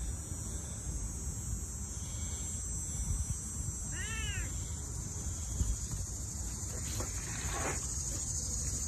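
Domestic cat meowing: one arched, rising-then-falling meow about four seconds in, and a falling cry about three seconds later. A steady high insect drone runs behind it.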